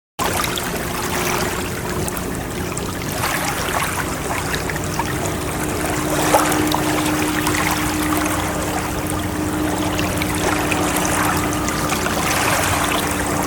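Water washing and splashing continuously, with no distinct breaking-wave swells. A steady low hum runs underneath.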